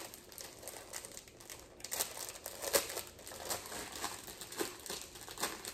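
Packaging crinkling as it is opened by hand: an irregular run of crackles and rustles.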